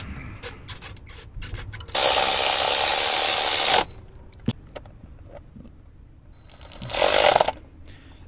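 Tools working on spark plugs in an engine bay: light scattered clicks, with a loud, even rush of noise lasting almost two seconds about two seconds in and a shorter one near the end.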